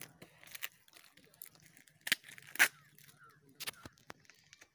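Parcel packaging being torn open by hand: a few short, sharp rips of paper and plastic wrapping, the two loudest about two seconds in, with crinkling between them.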